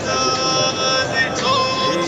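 Music: a sung Arabic wedding song, with long held notes that step in pitch in the gap between lines of lyrics.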